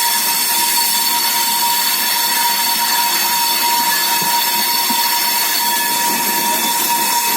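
The 02979 Jaipur Superfast train running with a strange, steady high-pitched whine: a constant whistle-like tone over a loud rushing noise that holds level throughout. The passenger takes it for a sign of a problem with the train, a sound it had been making through the night as well.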